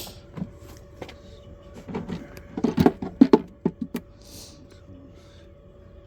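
Wooden beehive frames and boxes being handled: a run of sharp knocks and clicks, bunched about two to four seconds in.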